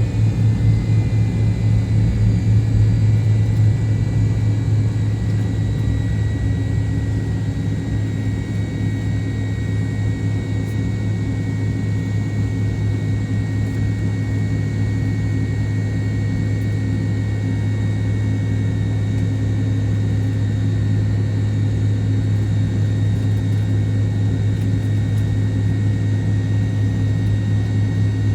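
Steady cabin noise of a McDonnell Douglas MD-88 airliner: a constant low rumble from its rear-mounted Pratt & Whitney JT8D turbofan engines, with a faint steady high whine over it.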